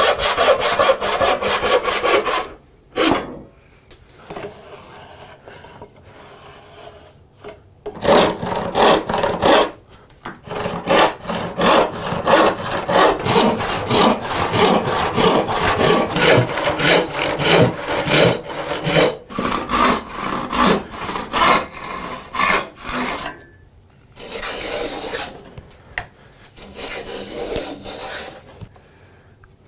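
Hand-sawing wood: rhythmic push-and-pull strokes of a brass-backed saw crosscutting a board, then a long steady run of hand-saw strokes ripping a strip along the grain. Near the end come two long hissing strokes of a hand plane shaving the strip's edge.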